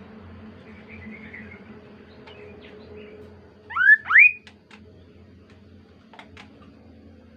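Kaso-kaso bird calling: two loud, quick rising whistled notes about halfway through, followed by a few faint short chips, over a steady low hum.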